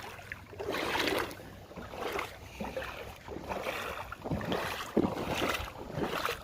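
Feet wading through ankle-deep river water: uneven sloshing splashes, roughly one a second.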